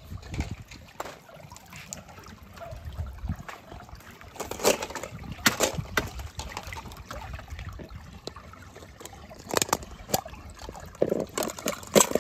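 Pool water splashing and sloshing as a skimmer net sweeps through it and scoops up plastic toy capsules, with water trickling and several sharper splashes, the first about four seconds in.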